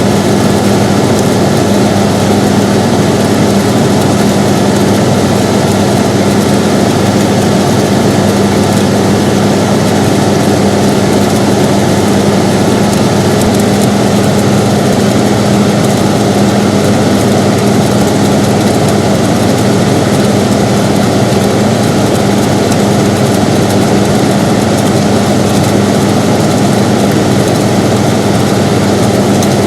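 Air conditioner running steadily: a constant rush of air with a steady low hum underneath.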